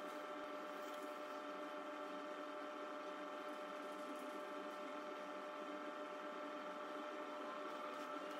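Steady, faint machine hum made of several constant tones, unchanging throughout.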